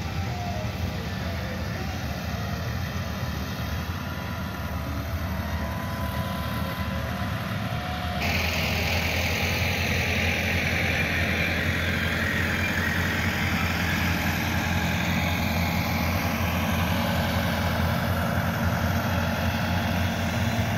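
Massey Ferguson 385 tractors' diesel engines running steadily as they drag levelling blades through sand. About eight seconds in the sound steps up a little louder, with more hiss on top.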